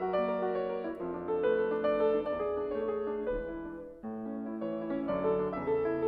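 Background piano music playing slow, held notes, with a brief dip in level about four seconds in.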